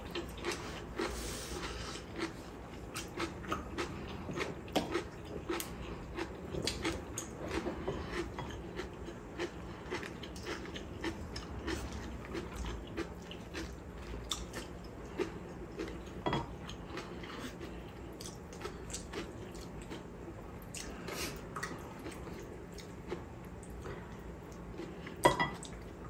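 Close-up eating sounds: chewing and biting, with small wet mouth clicks as grilled fish and cabbage-leaf wraps are eaten. Light chopstick and dish clicks run through it, and there is one sharper, louder click near the end.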